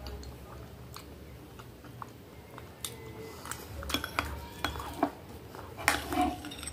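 Metal spoon scraping and clinking against a small glass dessert bowl: a quiet start, then a run of sharp clinks in the second half.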